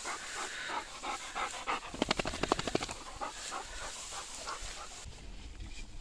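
Hunting dog panting in quick, rhythmic short breaths close by, fading away in the last second.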